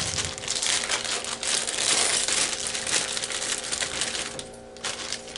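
Hard plastic scraping, rubbing and clicking as an Xbox 360's plastic casing is worked at by hand to get the back panel off. It eases off after about four seconds, with one sharp click near the end.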